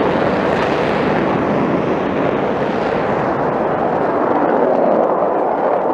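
Sukhoi Su-57 fighter's two jet engines at takeoff thrust as it rolls and lifts off: a loud, rough, steady rush of jet noise that swells slightly about five seconds in.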